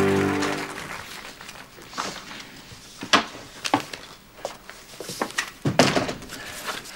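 The end of a music sting fades out in the first second, then a scatter of knocks and clicks in a small room: a door opening and closing and footsteps on a wooden floor.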